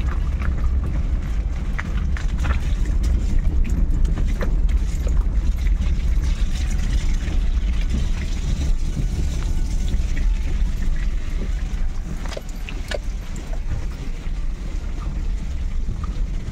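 Wind rumbling steadily on the phone's microphone, with scattered clicks from the phone being handled.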